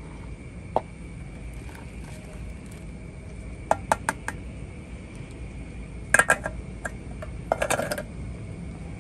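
Aluminium camping pot and metal spoon clinking and knocking as noodle soup is poured into a plastic bowl and the pot is set back on the gas stove: a few sharp clinks about four seconds in, then two louder rattling clusters around six and seven and a half seconds.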